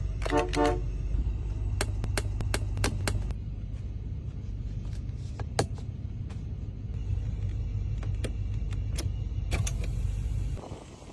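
Vintage car engine running with a steady low rumble and scattered light clicks. A short pulsing horn toot sounds near the start. The engine sound drops away sharply near the end.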